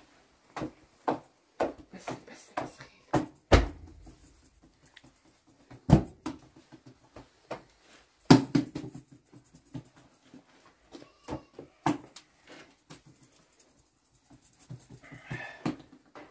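Thin flatbread dough being flipped between the hands and patted out on a cloth: a string of soft, irregular slaps and pats, with three louder slaps about 3.5, 6 and 8 seconds in.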